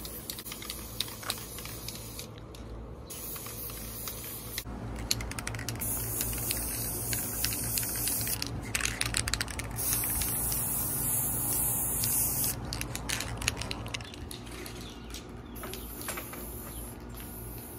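Aerosol spray paint can hissing in several long bursts with short pauses between them, as a small plastic kiddie pool is sprayed brown.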